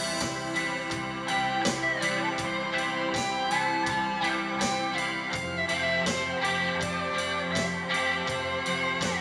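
Live rock band playing an instrumental passage. A Stratocaster-style electric guitar plays a lead line of held notes that bend in pitch, over drums with steady cymbal ticks and bass.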